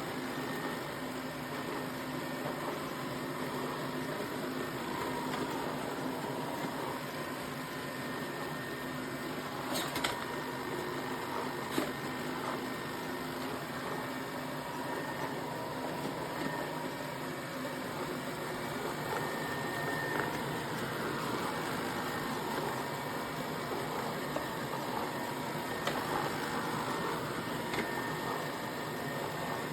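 Robot vacuum running: a steady motor hum over an even rush of suction, with a couple of sharp clicks about ten and twelve seconds in.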